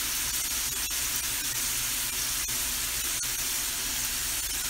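Ground beef with sliced onions and peppers sizzling in olive oil in a hot stainless steel skillet: a steady hiss with a few faint crackles.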